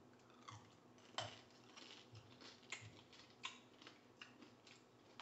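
Faint, irregular crunching and cracking of a hard sugar-candy shell on candied fruit as it is bitten and chewed, a few sharp cracks each second.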